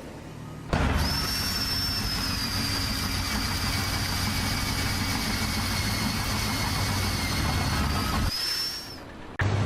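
A heavy machine's engine running steadily, with a steady high whine over it. It starts abruptly about a second in and cuts off near the end, where another steady engine sound begins.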